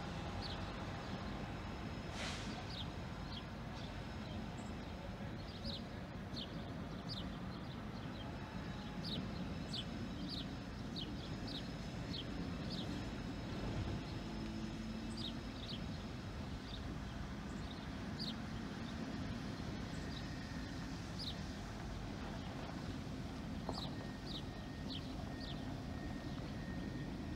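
Diesel locomotive running with a low, steady rumble as it moves slowly. Small birds chirp over it again and again in short, quick notes.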